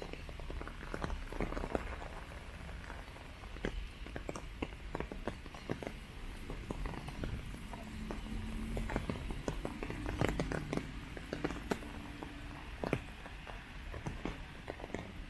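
Footsteps on a wet paved path, with raindrops pattering in irregular taps over a steady hiss of rain.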